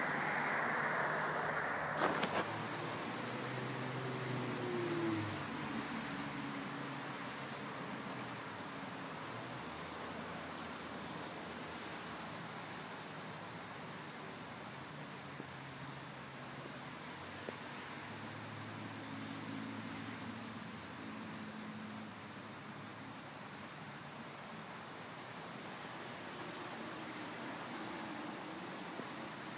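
Steady high-pitched drone of insects, with water splashing in the first second or so and a sharp click about two seconds in.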